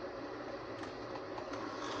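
Powered Bachmann Plus HO-scale Great Northern 313B model locomotive running along its track: its small electric motor and gearing give a steady whir, with a few faint clicks.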